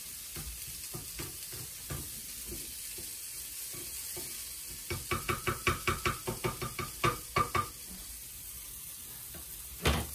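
Cauliflower rice and mushrooms sizzling in a frying pan as they are stirred, with a quick run of clicking strokes of the utensil against the pan, about four a second, starting about halfway through, and one louder knock near the end.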